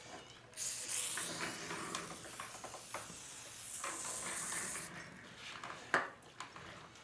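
An aerosol can of lube sprays in one steady hiss for about four seconds during a motorcycle tire change. Light metallic clinks of tire tools follow, with a sharp knock near the end.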